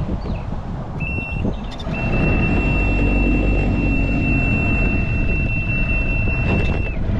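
Two-stroke outboard motor running, louder from about two seconds in, with the outboard's steady high-pitched warning horn sounding briefly about a second in and then again without a break until near the end.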